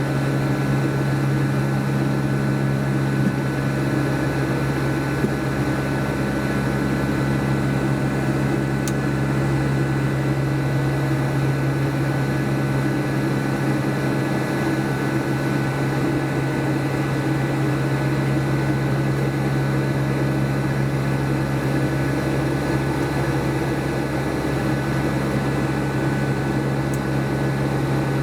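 Steady cabin drone inside a Boeing 757 in flight: the hum of its Rolls-Royce RB211 engines and the rush of air, with a few steady tones running through it.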